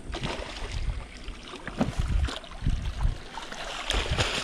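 Irregular knocks, bumps and rustling of handling gear and a catch aboard a small aluminium fishing boat.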